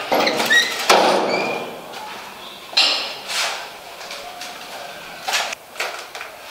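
A door being opened: a loud rush of handle and door noise with short squeaks in the first second and a half. Several more short knocks and scrapes follow.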